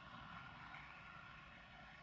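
Near silence: a faint, steady background hiss and low rumble with no distinct sound events.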